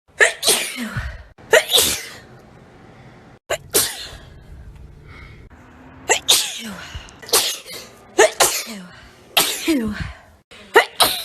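A string of about ten loud, sudden human sneezes in quick succession, most one to two seconds apart.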